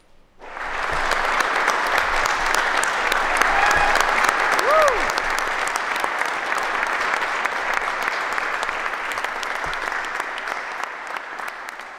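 Audience applauding: clapping breaks out suddenly about half a second in, holds steady and slowly fades toward the end. A short rising-and-falling whoop rises above it a little before the middle.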